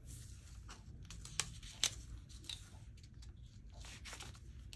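Craft knife slicing through envelope paper on a cutting mat: a run of short scraping cuts and sharp ticks, the two loudest about a second and a half and two seconds in. The blade is not that sharp, so it drags through the paper.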